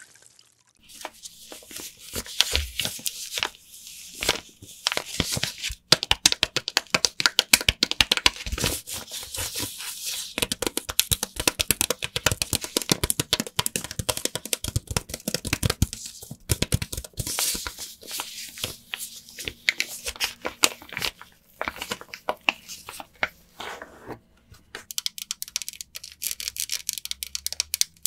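Wet bar of lavender soap being lathered: a dense, fast crackling and squishing of soap and foam, broken by a few brief pauses.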